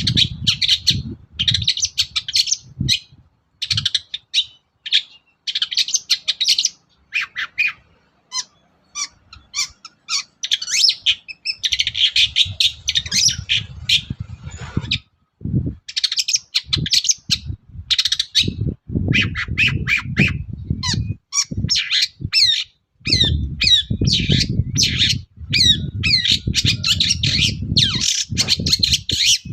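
Long-tailed shrike (cendet) singing loudly in rapid bouts of harsh chatters, squawks and quick whistled notes broken by short pauses, with a low rumble under some of the bouts.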